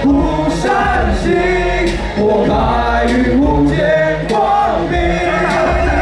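Male voices singing into microphones through a PA, over a backing track with a steady beat and bass.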